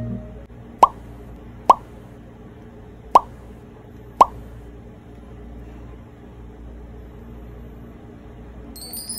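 Four short plops, each a quick blip that drops in pitch, like a drip, spaced about a second apart, over a low steady room hum.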